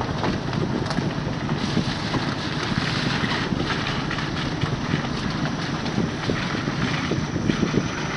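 Wind buffeting the microphone outdoors, a steady low rumbling rush that rises and falls in gusts.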